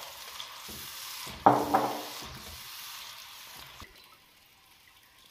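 Yogurt-and-gram-flour batter sizzling as it is poured onto hot oily masala in a clay pot and stirred with a spatula. There is one sharp knock about a second and a half in, and the sizzle dies down near the end as the batter cools the pan.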